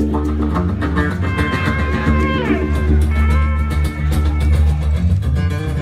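Rock band playing live: guitars over a drum kit with a heavy low end. About two seconds in, a high note slides down in pitch.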